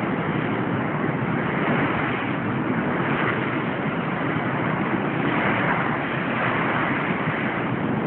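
Heavy storm surf on the ocean beach: waves breaking and churning white water in a continuous rush that swells slightly now and then, with wind on the microphone.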